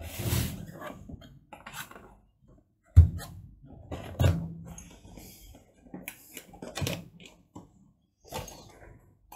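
Cardboard packaging being handled and rustled, with small cardboard boxes knocked and set down on a tabletop; the sharpest knock comes about three seconds in.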